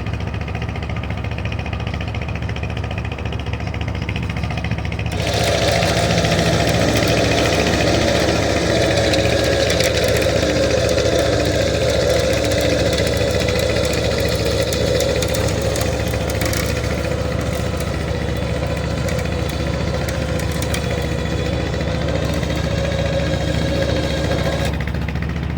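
An engine idling steadily. About five seconds in, a louder mechanical whine with a hiss starts, holds for about twenty seconds, then cuts off.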